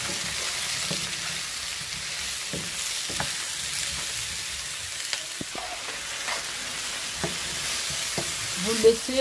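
Diced potatoes, mushrooms and onion sizzling in a frying pan with a steady hiss. A wooden spatula stirs them, giving short scrapes and knocks every second or so.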